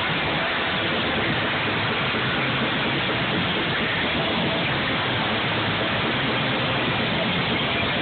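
A doom metal band playing loud and distorted, heard as a steady dense wash with a few faint held notes, smeared by an overloaded phone microphone.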